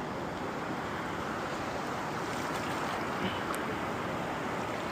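Steady rushing noise of wind and surf, with no distinct event standing out.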